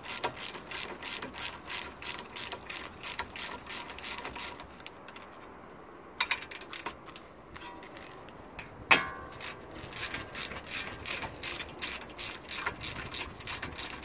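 Hand ratchet with a 7 mm hex bit clicking steadily, about three clicks a second, as the front brake caliper guide bolts are backed out. A single louder snap about nine seconds in.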